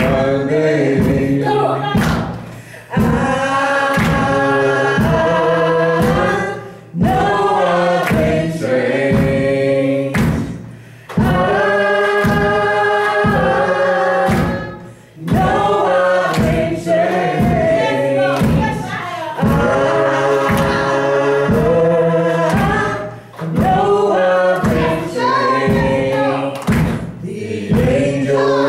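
A woman singing a gospel song into a microphone, in long sung phrases with short breaks between them, over a steady beat.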